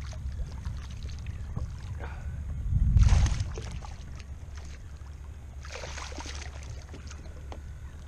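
Water splashing as a hooked jack crevalle thrashes at the surface beside a kayak, loudest about three seconds in and again around six seconds, over a steady low rumble.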